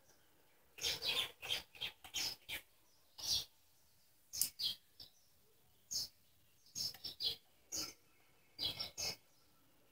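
Short scraping and clicking handling noises from work on a small petrol engine, in about a dozen separate bursts with quiet between.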